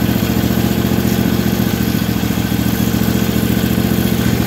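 Briggs & Stratton overhead-valve twin-cylinder engine idling steadily. Its head gasket is taken to be blown: one cylinder is weak on compression and exhaust is pushed into the crankcase as heavy blow-by.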